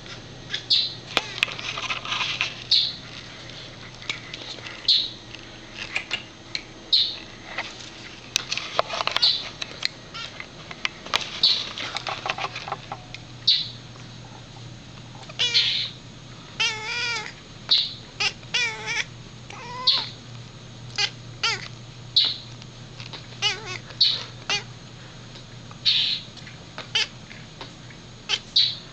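Domestic cat making repeated short, high chirps and squeaky baby-like calls at a bird, one every second or two, with a few quick wavering trills in the middle. A steady low hum runs underneath.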